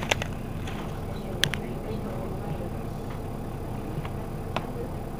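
Mercedes-Benz Citaro city bus idling at a standstill, a steady low engine rumble, with a few sharp clicks, the loudest just after the start and about a second and a half in.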